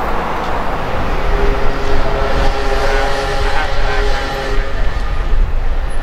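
City street traffic rumble. A sustained tone of several pitches sounds over it for about two seconds near the middle.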